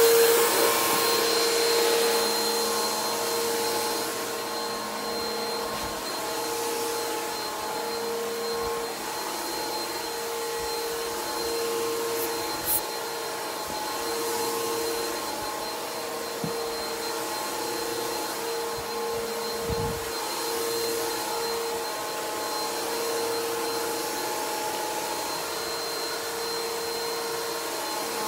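Bissell PowerForce Helix upright vacuum cleaner running steadily with a constant motor whine. A few brief clicks and knocks come through as it works.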